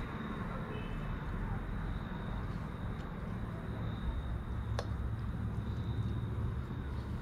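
A live band's concert heard from far off as a low, muffled rumble in which mostly the bass carries.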